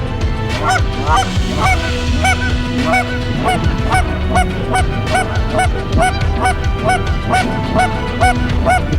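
Goose honks repeating rapidly, about two to three a second, over background music with long held notes.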